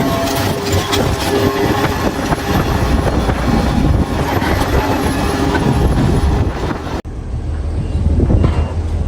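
Old crawler tractor's engine working hard, with dense clatter from the machine as it moves. The sound changes abruptly about seven seconds in, where the clip cuts to other heavy-machinery noise.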